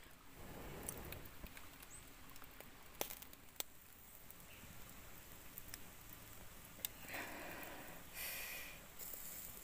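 Faint crackling of a wood-and-charcoal fire grilling pork intestines on bamboo skewers, with a few sharp pops and light rustling and scraping as the skewers are handled.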